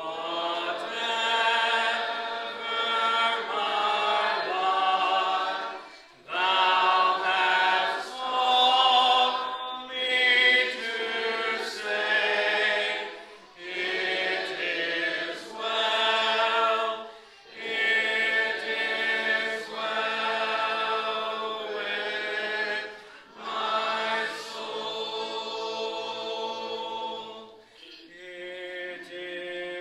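Congregation singing a hymn a cappella, many voices without instruments, in sung lines a few seconds long with short breaths between them.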